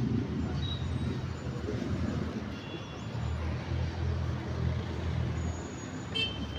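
Steady low rumble of road traffic, with a vehicle engine growing louder through the middle. A short, sharp ringing sound comes near the end.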